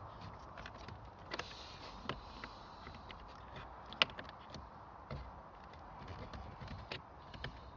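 Hands and tools working on car interior trim: scattered light clicks and knocks, with one sharp click about four seconds in.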